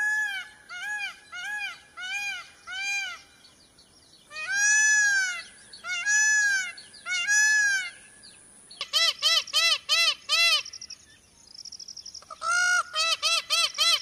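A bird calling in runs of short notes, each rising then falling in pitch: first a series of evenly spaced calls, then three longer, louder ones, then quicker runs of about three calls a second after a short pause.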